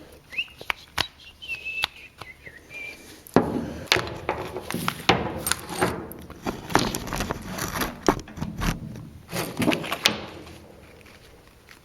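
Plastic and metal parts of a car's ignition switch assembly clicking and clattering as they are handled and fitted back in place: a few faint squeaks and clicks, then, from about three seconds in, a busy run of irregular knocks and clicks that stops near the end.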